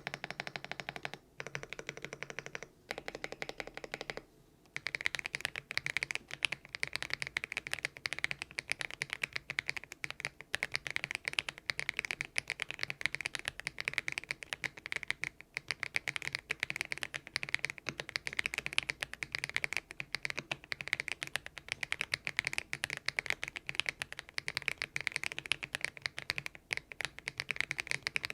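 Typing on a Thinkway TV108 mechanical keyboard fitted with hand-lubed Kailh Box Aurora Ice Cream linear switches. The first few seconds come in short runs with brief gaps, then fast typing continues without a break from about five seconds in.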